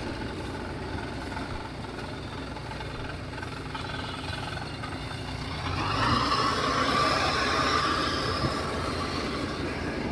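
Tracked rice combine harvester running steadily, its engine and threshing machinery giving a continuous mechanical din. It grows louder about six seconds in, as a higher whirring comes up.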